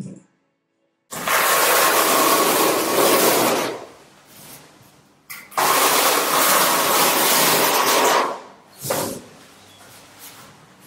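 Steel notched trowel scraping tile adhesive across a concrete floor: two long scraping passes of a few seconds each, then a short one near the end.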